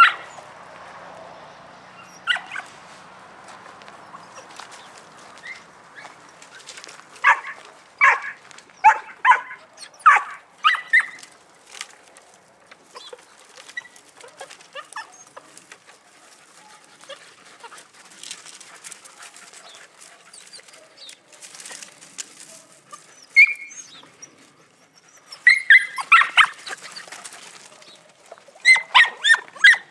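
Young podenco puppies yapping in quick bursts of short, high barks, with a quieter stretch in the middle.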